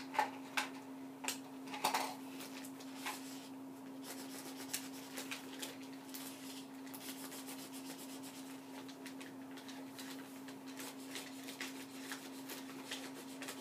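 Faint marker strokes scratching and tapping on paper, with paper being handled, over a steady low hum.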